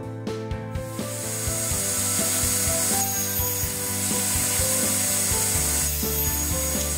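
Table saw cutting across a bamboo board fed with a miter gauge: a loud high hiss of the blade in the wood that starts abruptly about a second in and stops near the end.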